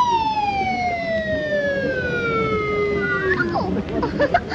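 Cartoon sound effect: one long whistle-like tone sliding smoothly downward in pitch for about three and a half seconds, then cutting off, followed by a few short scattered sounds near the end.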